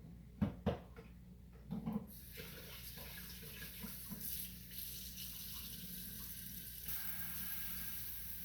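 A few knocks, then a kitchen tap running steadily into a sink from about two seconds in, turned up a little louder about seven seconds in.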